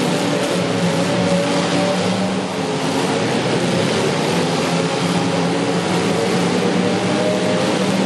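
Demolition derby car engines running loudly and revving, their pitch shifting, over a dense wash of noise.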